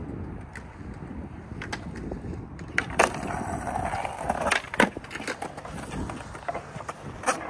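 Skateboard wheels rolling on concrete with a steady rumble. About three seconds in comes a sharp clack as the board lands on the metal-edged ledge, followed by a grinding scrape of a 50-50 grind lasting about a second and a half. Another sharp clack comes as the board drops off, then lighter taps and clacks of freestyle footwork on the flat.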